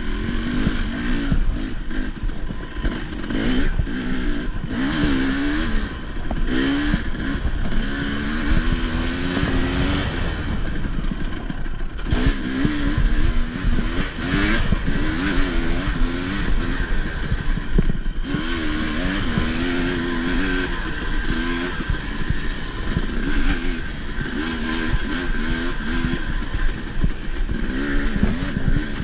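Enduro dirt bike's engine revving up and falling back over and over as it is ridden through a race test, with frequent clattering knocks throughout.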